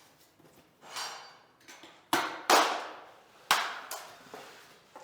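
Several sharp knocks on vinyl click flooring planks, the loudest about two and a half seconds in, as a mallet or hammer taps the planks to lock them together.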